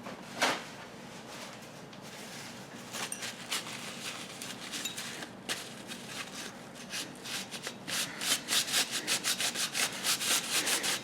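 Rubbing strokes, wiping old thermal paste off the computer's CPU cooler parts: scattered at first, then from about seven seconds in a fast, even back-and-forth of about three to four strokes a second, growing louder.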